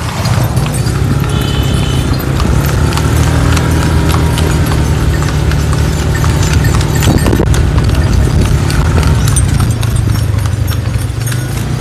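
Horse's hooves clip-clopping on a paved road as it pulls a dokar (horse-drawn cart), with a steady low rumble underneath.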